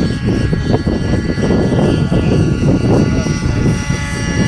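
Radio-controlled model helicopter in flight, its smoking glow engine and rotors giving a steady, loud whine of several high tones over a low rumble.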